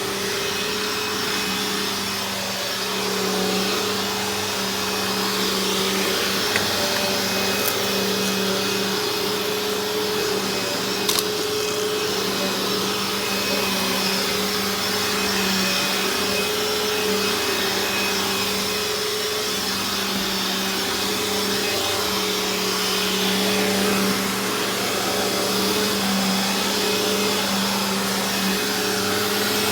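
Eureka The Boss Victory vacuum cleaner running on carpet, a steady motor drone, with a couple of brief clicks partway through.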